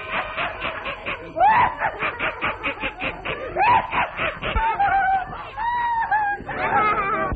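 High-pitched cartoon voice laughing in fast, repeated cackles, about five a second, followed by squeaky cries that waver and glide in pitch.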